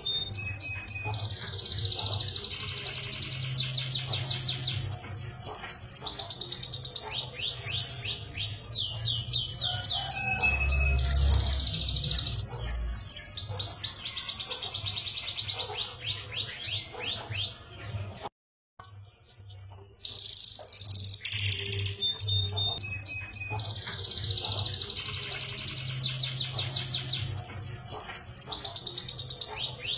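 Domestic canary singing a long, fast song of rapid rolling trills and high chirps. The song breaks off for a moment just past halfway, then carries on.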